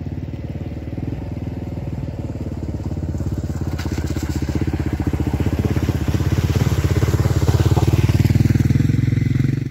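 Kawasaki KLR 650's single-cylinder four-stroke engine running as the motorcycle rides through a shallow creek, with water splashing around the wheels. It grows louder as it comes closer.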